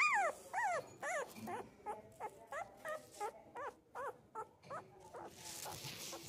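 A very young puppy crying: about a dozen short, high-pitched whimpers, each rising and then falling in pitch, at two to three a second. The cries stop about five seconds in, and a soft hiss follows.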